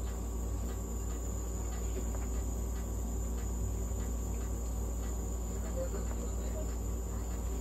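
Steady hum with a constant high-pitched whine from the nebulizer equipment running, sending medicated mist for a cat's inhalation therapy.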